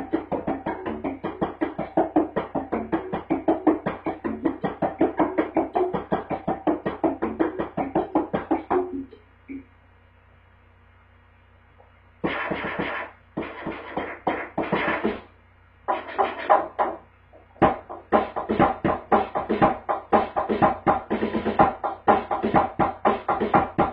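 Drum kit played with light-up plastic drumsticks: a fast, dense run of strokes that stops about nine seconds in, a pause of about three seconds, then short bursts of fills that pick up again and run on steadily.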